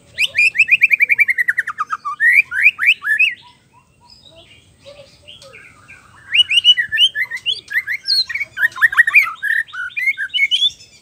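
White-rumped shama singing: a fast trill of about fourteen notes falling in pitch, then a few quick rising whistles. After a short pause, a long, varied run of rapid notes begins about six seconds in.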